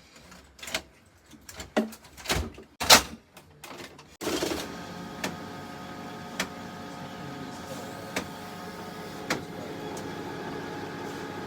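Several sharp clicks and knocks of handling the HP LaserJet printer. Then, about four seconds in, its drive motor and gear train start running steadily, with a whine and a light click every second or so.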